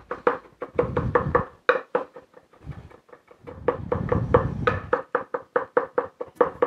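Chef's knife chopping fresh rosemary on a wooden end-grain butcher block: quick knocks of the blade against the board, about five or six a second, in two runs broken by a pause of about two seconds.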